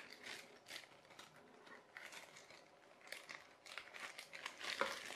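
A clear plastic bag crinkling faintly as it is handled, in short irregular crackles that grow a little busier near the end.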